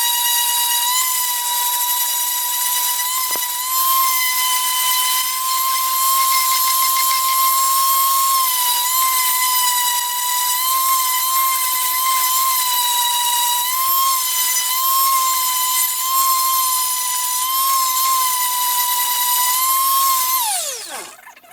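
Small high-speed power tool motor running with a steady high whine whose pitch wavers slightly, then switched off near the end and spinning down in a quickly falling whine.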